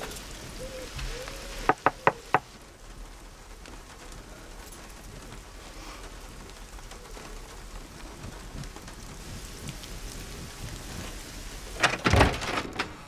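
A steady hiss like light rain, with three sharp knocks close together about two seconds in and a burst of heavy thuds near the end.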